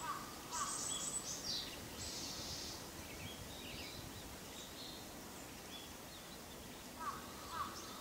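Pale thrush calling softly in a rambling subsong. Quick low downslurred notes come near the start and again near the end, with thin, high hissing phrases in the first few seconds and scattered short higher notes after them.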